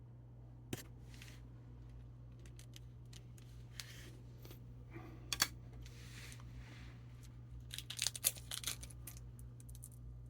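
Scattered light clicks, taps and short scrapes of small hard objects being handled, likely a phone and small repair tools, with a quick cluster of sharper clicks about eight seconds in. A steady low hum runs underneath.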